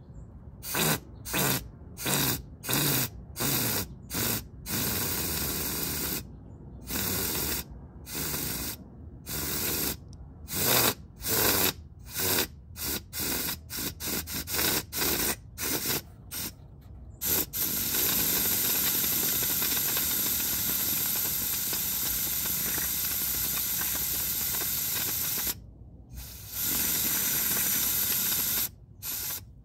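Compressed-air blow gun hissing against a scooter's final drive case: a rapid series of short, sharply cut blasts, then one long steady blast of several seconds and a last shorter one near the end.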